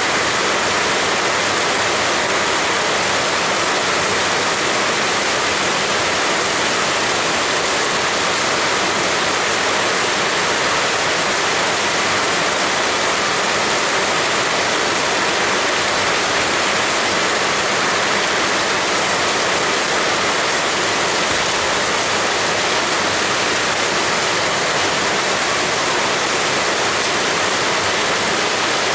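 Heavy rain falling in a steady, unbroken hiss with no thunder or other events.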